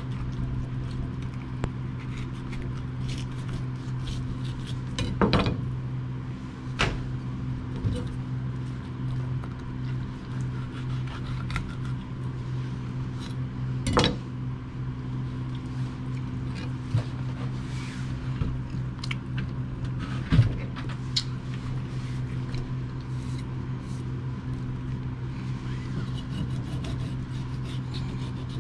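Kitchen knife cutting and scraping through a Korean rockfish (black rockfish) on a plastic cutting board while it is filleted, with a few sharp knocks, the loudest about 20 seconds in. A steady low hum runs underneath.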